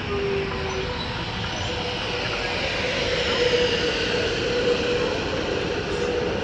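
Metro Trains Melbourne electric suburban train rolling slowly past along the platform, its wheels and running gear making a steady rumble with a humming tone and a higher whine that grows stronger midway.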